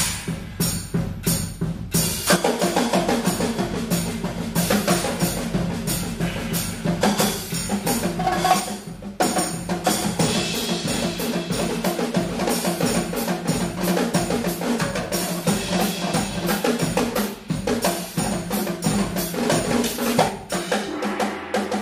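Percussion orchestra playing a fast, dense rhythm of drum strokes, led by a soloist on rototoms, the tunable shell-less drums.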